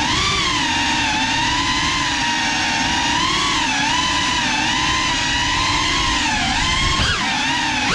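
GEPRC Cinelog 35 FPV cinewhoop's brushless motors and propellers whining in flight, the pitch rising and falling with the throttle. Near the end the pitch dips sharply and climbs back.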